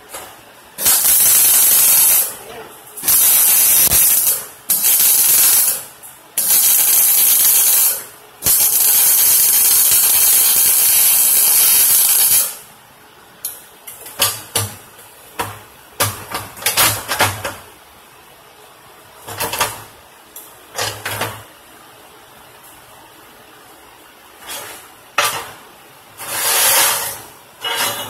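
MIG welding arc crackling and hissing in separate runs: four bursts of one to two seconds, then one of about four seconds, followed by a string of short bursts.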